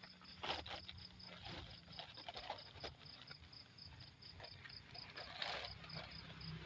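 Night insects chirping: a faint, steady high-pitched pulsing, about four to five pulses a second, with scattered light rustles and knocks.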